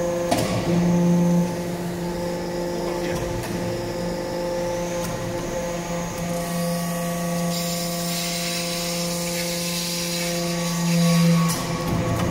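Metal-chip briquetting press's hydraulic power unit running with a steady hum. It swells louder briefly just after the start and again near the end, each time with a sharp click.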